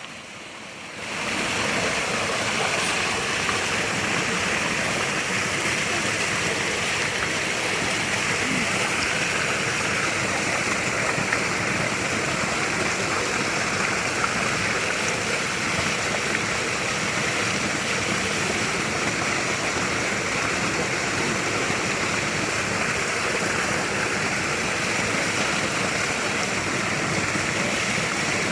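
Running water flowing steadily, a dense even rush that comes in about a second in and holds unchanged.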